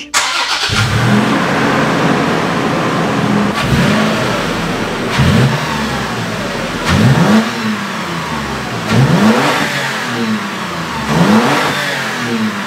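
2023 Toyota 4Runner TRD Pro's 4.0-litre V6 heard through its TRD cat-back exhaust, idling and blipped in about five short revs a couple of seconds apart, each rising and falling back to idle.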